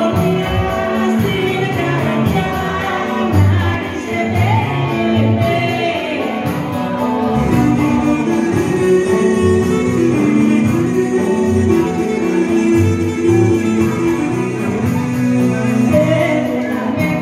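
Live Greek folk dance music: a clarinet carrying the melody with a voice singing, over a steady drum beat and guitar.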